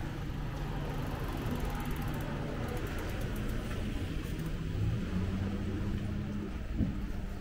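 A vehicle engine running with a steady low hum that steps up in pitch about five seconds in, over general street noise. One sharp click near the end.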